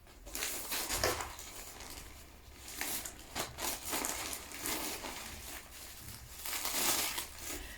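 Packaging and clothes crinkling and rustling as they are handled and unwrapped, in irregular bursts that are loudest about a second in, around three to four seconds in, and near the end.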